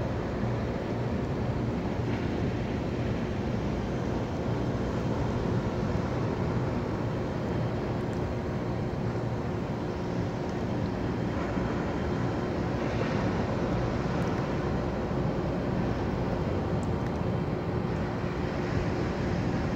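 Steady low roar of distant ocean surf, with wind rumbling on the microphone.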